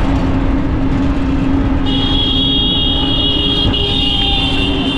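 Road traffic noise heard while riding along a highway, with a steady high-pitched whine joining about two seconds in.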